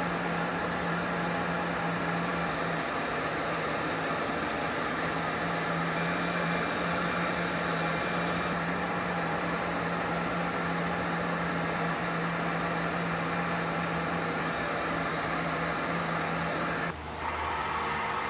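Wood lathe running steadily with a constant motor hum, turning the pen blank; the sound changes abruptly near the end.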